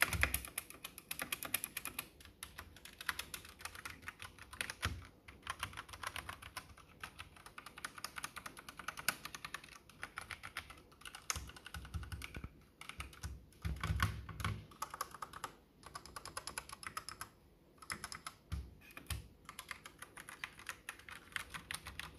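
Typing on an Akko 3087 mechanical keyboard: rapid runs of clacking keystrokes with a few short pauses and some deeper thuds.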